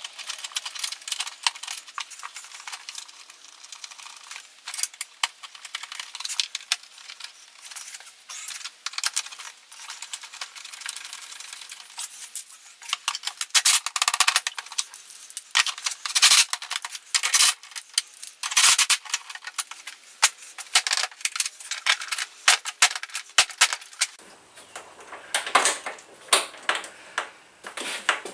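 Irregular metallic clicks, clinks and rattles of hands handling small hard parts inside a scooter's under-seat storage compartment.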